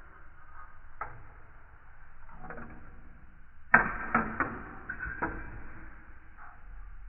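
Marbles rolling and clacking down a marble run track: scattered light knocks, then a burst of sharp clacks a little under four seconds in, followed by several more over the next second or so.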